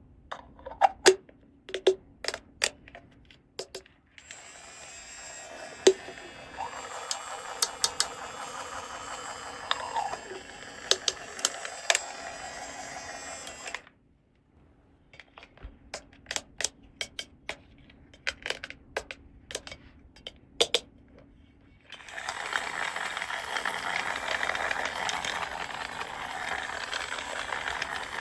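Small plastic toy pieces and packaging being handled: clicking and tapping in irregular runs, with two long stretches of steady rustling in between.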